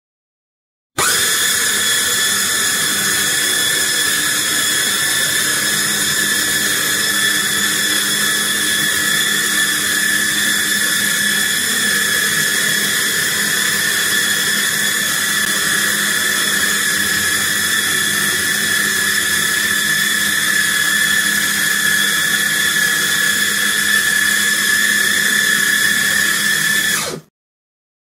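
Electric food chopper's motor starting abruptly about a second in and running steadily with a whine as its blades churn a bowl full of small elastic hair bands, then stopping suddenly about a second before the end.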